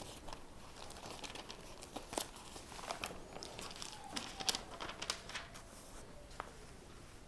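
Bible pages being turned: faint, irregular papery rustles and small crinkles.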